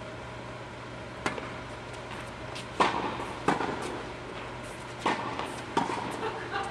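Tennis balls struck by rackets and bouncing on the court during a rally: about five sharp strikes, the loudest about three seconds in, each echoing in a large indoor tennis hall.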